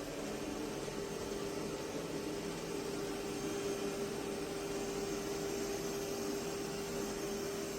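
Roborock Qrevo Curv S5X robot vacuum running: a steady whooshing whir with a constant hum.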